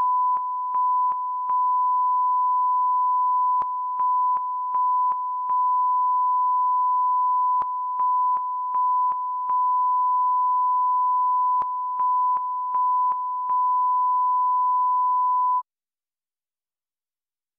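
BBC broadcast line-up tone: a steady 1 kHz sine tone broken by a group of three brief dropouts every four seconds, the GLITS line-identification sequence. It cuts off about three-quarters of the way through.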